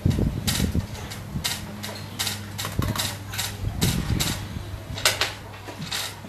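Repeated sharp clacks and clicks of xiangqi pieces on a wooden board and chess-clock buttons, about two a second, with a few dull thumps near the start and around the middle over a steady low hum.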